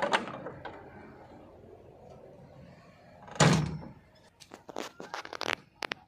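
The cab door of a JCB 3DX backhoe loader shut with a loud thunk about three and a half seconds in, after a smaller knock at the start, followed by a run of quick clicks and rattles from inside the cab.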